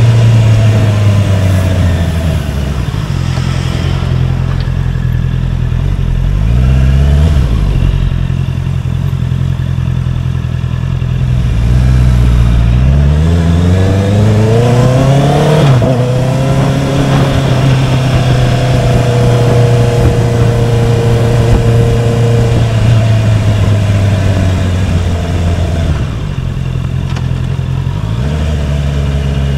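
Honda CBR650R's inline-four engine running under way. It climbs in pitch briefly about a quarter of the way in, and again for a few seconds towards the middle, breaking off sharply at the top. In between it holds a steady note.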